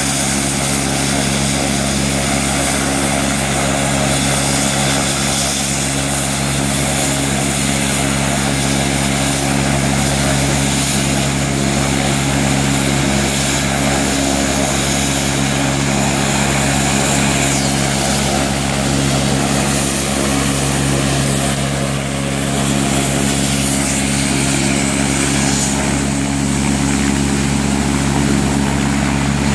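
Air-ambulance helicopter running on the helipad with its main rotor turning, held at ground idle ahead of lift-off. The loud, steady engine and rotor sound does not change throughout.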